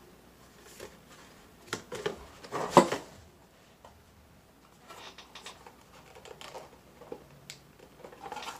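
Plastic clicks, taps and rubbing from hands working at a GoPro Hero 7 Black and its plastic mounting piece, trying to free the camera; a loud clack-and-rustle a little under three seconds in, then lighter scattered ticks.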